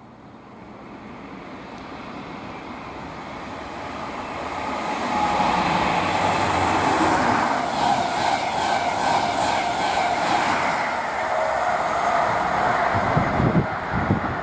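Express passenger train passing through the station at speed. The rush of wheels and air builds up, then holds loud as the coaches go by, with regular clicking of wheels over the rail joints at about three a second. Wind buffets the microphone near the end.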